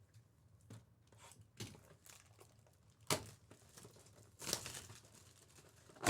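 Trading-card pack wrappers being ripped open and crinkled in a handful of short, separate bursts. There is a sharp rip about three seconds in and a longer one about four and a half seconds in.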